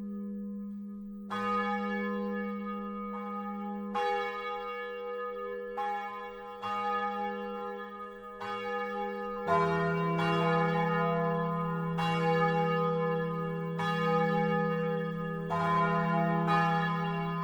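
Four church bells of a twelve-bell peal ringing together for evening mass, their strikes overlapping irregularly. A deeper bell joins about nine and a half seconds in and the ringing grows louder.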